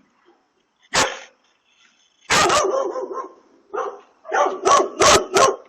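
A dog barking: one sharp bark, then a longer bark, then a quick run of about five barks in the last two seconds.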